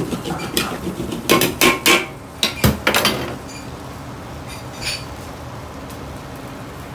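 A metal ladle clanks and scrapes against a large 50 cm wok while tossing greens in a stir-fry: a rapid run of ringing strikes over the first three seconds. After that only a steady background noise remains.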